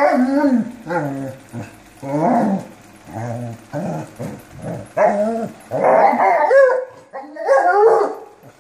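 Dogs playing, a basset hound and a West Highland white terrier: a quick string of play barks and growls, about a dozen short calls that bend in pitch, loudest from about five to eight seconds in.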